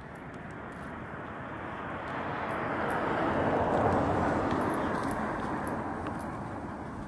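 A vehicle driving past on the street, its noise swelling steadily to a peak about four seconds in and then fading away.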